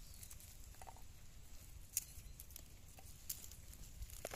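Faint, scattered crackles and ticks of dry, papery garlic skin being peeled off the cloves by hand.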